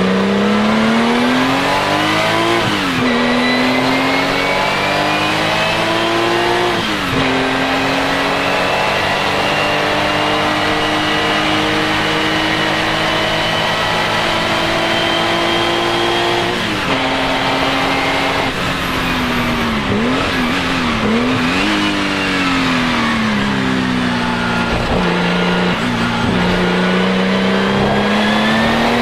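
Porsche 935 K3's turbocharged flat-six race engine under full throttle: its pitch climbs and drops sharply at two upshifts in the first seven seconds, then holds a long, slowly rising note. Past halfway it falls away under braking, with several quick blips on the downshifts, then climbs again as the car accelerates. The level stays constant with no pass-by, as heard from on board.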